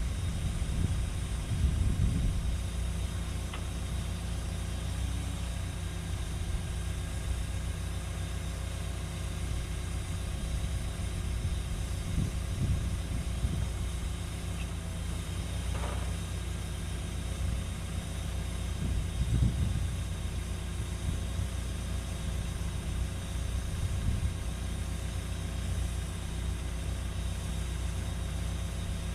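Cat 314E excavator's diesel engine running steadily at low speed, with a short higher-pitched sound just past halfway.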